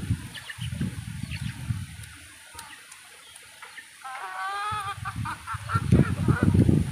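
A farmyard bird gives one wavering honking call of under a second, about four seconds in. Low, irregular rustling and knocking close to the microphone comes at the start and again near the end.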